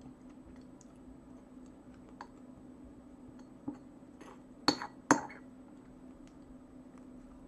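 Metal fork clinking against a china plate while picking up salad: a few light taps, then two sharp clinks about half a second apart midway, over a faint steady low hum.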